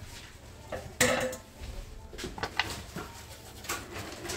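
Kitchen cookware clatter at the stove: a louder clatter about a second in, then several light knocks and clinks of a utensil against a pot.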